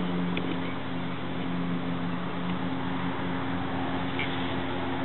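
A steady low mechanical hum over an even hiss, like a motor running at a distance, with a faint short chirp about four seconds in.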